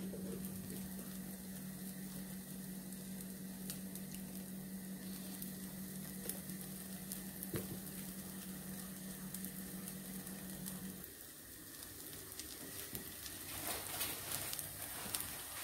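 Oat pancake frying in melted butter in a nonstick pan: a steady sizzle with fine crackles. A low steady hum runs underneath and stops about two-thirds of the way through.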